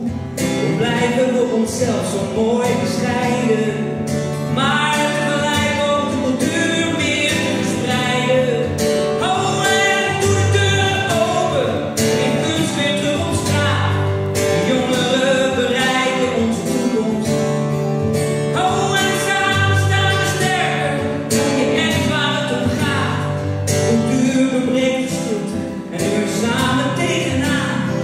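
A man singing a slow song while strumming an acoustic guitar, amplified live through a stage microphone and PA.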